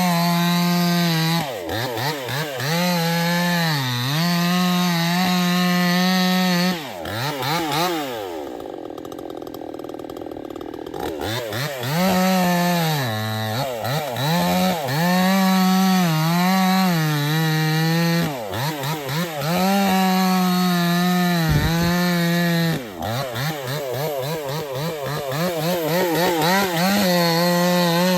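A Proyama 68cc two-stroke gas chainsaw running at high revs and cutting wood. Its pitch sags again and again as the chain loads up in the cut, then picks back up. About a third of the way through it eases off to a quieter, lower note for a few seconds before revving up again.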